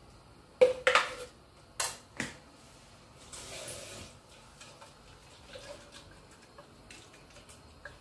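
Metal cooking utensils clanking sharply against a stainless steel stockpot, a quick cluster of knocks about half a second in and two more around two seconds. Then a brief hiss of water from the sink tap, followed by a few light ticks.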